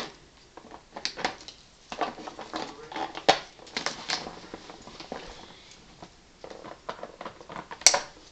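A taped cardboard box being cut open by hand: irregular crackling and clicking of cardboard and packing tape as the blade works through, with one sharp snap near the end.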